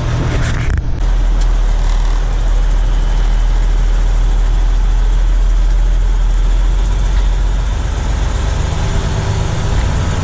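Truck engine and road noise inside the cab while driving: a steady low drone that strengthens about a second in.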